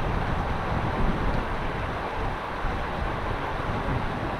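Wind buffeting the microphone: a steady low rumble of noise with no engine or motor tone in it.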